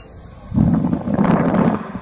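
Wind buffeting the microphone in a gust, a rough low rumble that swells about half a second in and lasts over a second.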